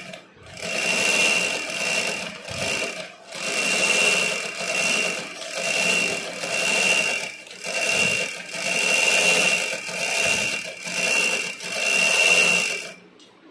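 Electric-motor-driven Nitya Tailor Model sewing machine stitching cloth, running in short spurts of about a second with brief pauses between, and stopping shortly before the end.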